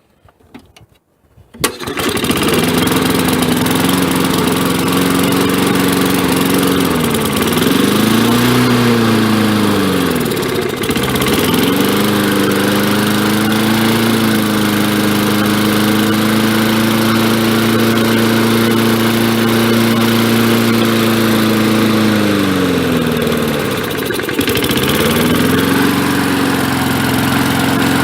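1965 Briggs & Stratton 3 HP single-cylinder four-stroke engine starting off its wind-up spring starter, catching at once about two seconds in and running steadily. Twice its speed sags and picks back up, a stumble that the owner thinks might be a clogged main jet in the carburetor.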